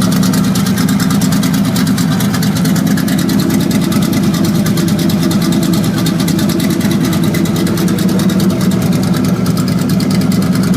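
1978 Chevrolet Camaro engine running steadily at idle with a fast, even ticking, which the mechanic takes for a bad lifter and a worn camshaft on the left side of the engine.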